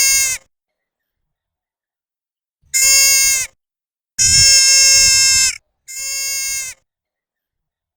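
Deer fawn bleating: the tail of one call right at the start, then three more high calls on a steady pitch that dips slightly at the end of each. The second of these is the longest, about a second and a half, and the last is quieter.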